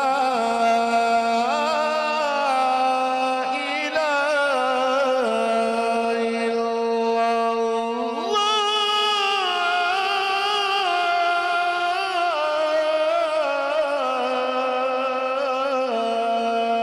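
A qari's solo male voice in melodic Quranic-style recitation through a microphone, drawing out one long ornamented phrase without a breath. The pitch steps up about eight seconds in and then steps back down toward the end.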